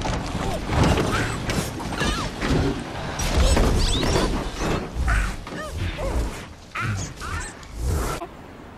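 Cartoon sound effects: steady rain under a run of metal clanks, crashes and high gliding squeaks, with a heavy low rumble about three to five seconds in as a truck's wheels roll over. The din drops away to the rain alone near the end.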